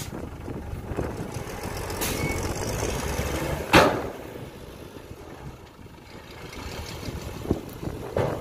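Dump truck's diesel engine running as the raised bed tips its load of soil out and the truck pulls forward. There is a sharp bang about four seconds in, after which the engine runs quieter.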